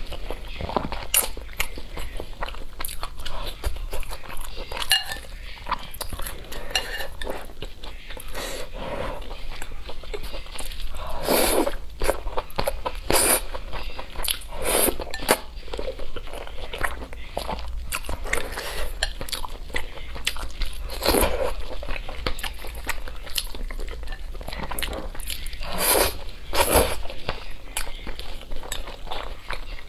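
Close-miked eating sounds: saucy noodles slurped from chopsticks and chewed, with irregular wet mouth clicks and smacks.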